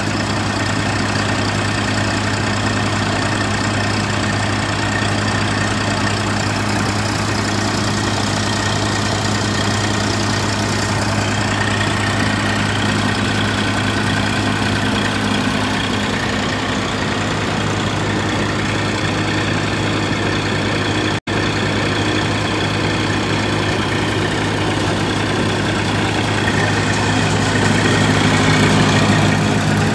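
Eicher 380 tractor's diesel engine running steadily at idle.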